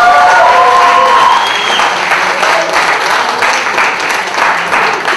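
An audience applauding and cheering, with voices calling out over the clapping near the start. After a second or two the clapping settles into a rhythm of about three claps a second.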